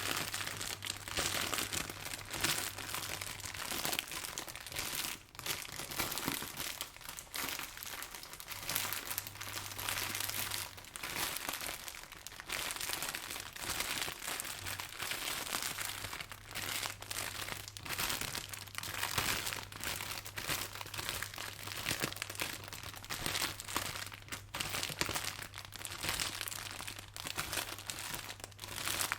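Footsteps walking through dry leaves: a continuous crunching and crackling of leaves underfoot, rising and falling with each step.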